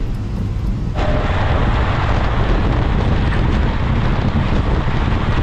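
Passenger train running: a loud, steady rumble with wind buffeting the microphone, getting abruptly louder about a second in.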